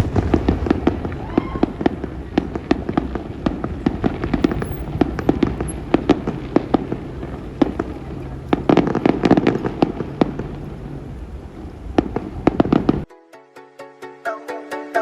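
Aerial fireworks going off in a dense run of sharp bangs and crackles. The run cuts off suddenly near the end, and electronic music with a steady beat takes over.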